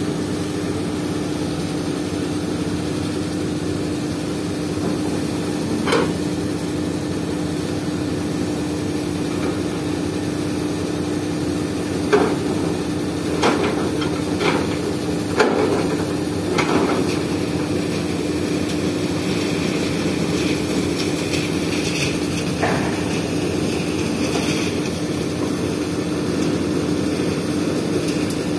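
Caterpillar 320D excavator's diesel engine running steadily with a constant hum, while its bucket digs and gives several sharp knocks, most of them in a quick cluster about halfway through.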